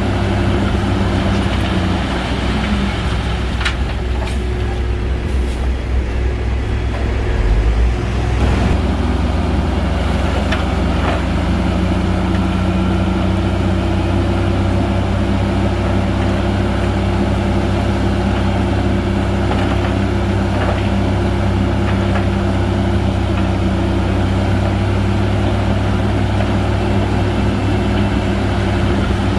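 Shantui bulldozer's heavy diesel engine running steadily. The engine note dips a couple of seconds in, then picks up with a brief surge about eight seconds in, and a few sharp knocks are heard.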